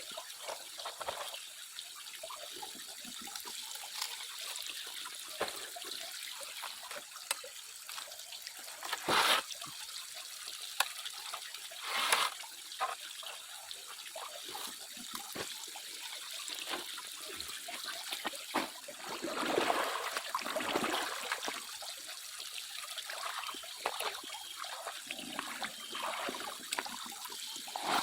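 Water trickling and splashing steadily, with a few short louder splashes and one longer stretch of sloshing about two-thirds of the way through.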